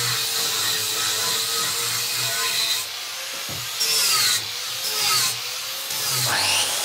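Angle grinder running, its disc grinding with a steady hiss that grows louder in short surges about four seconds in, again a second later, and near the end.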